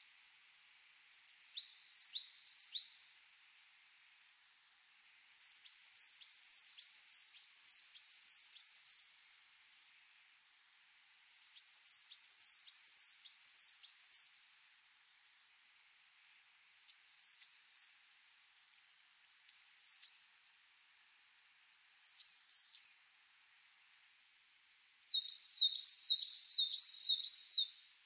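Coal tit singing: seven separate phrases, each one to three seconds long, of a quickly repeated high, thin two-note motif. Each pair is a high descending note followed by a lower rising one, repeated alternately.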